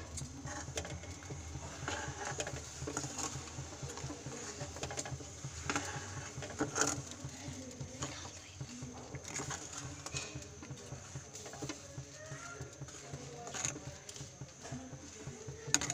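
Tamarind and jaggery chutney simmering in a pot on a gas burner, with a steady low hum and a scatter of small bubbling pops, and a few louder clicks.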